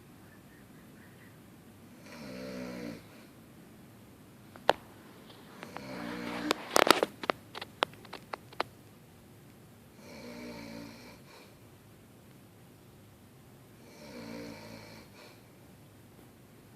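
An elderly woman snoring loudly, a pitched rasping snore on each breath about every four seconds. The loudest breath, in the middle, comes with a quick run of sharp clicks.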